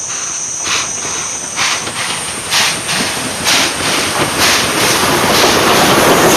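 Steam locomotive running past with its train of coaches, chuffing about once a second over a steady hiss, growing louder as it draws close.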